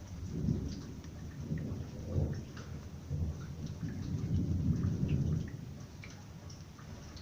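Thunder rumbling in several rolling swells that die away about six seconds in, with raindrops dripping and pattering throughout.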